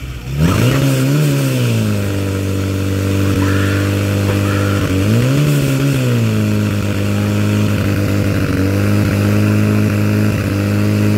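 Portable fire pump's engine running at high revs, pumping water out through the pressure hose. Its revs climb about half a second in and surge once more around five seconds in, then hold steady.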